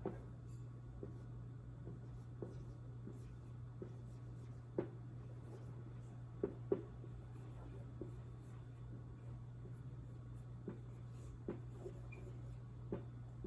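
Faint handwriting: scattered light taps and scratches of a pen writing out a line of text, a few strokes louder around the middle, over a steady low hum.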